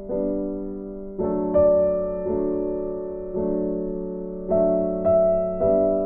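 Background music: soft electric piano playing slow chords, each struck and left to fade.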